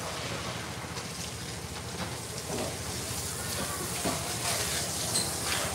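Street-market ambience: a steady hiss of background noise with faint, scattered voices from the crowd and a brief high chirp near the end.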